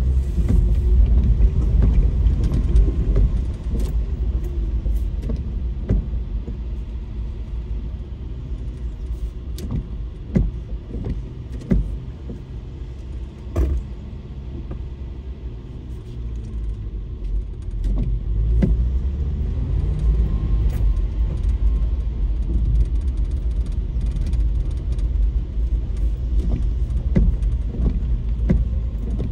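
Car driving: a steady low rumble of engine and road noise with scattered light clicks and knocks. It eases off through the middle and picks up again about eighteen seconds in.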